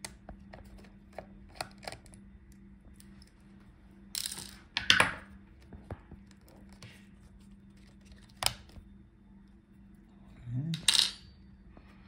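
Small metal clicks and clinks of a screwdriver and tiny screws as a metal cable bracket is unscrewed and lifted off a laptop motherboard, with a few louder clattering knocks as parts are set down.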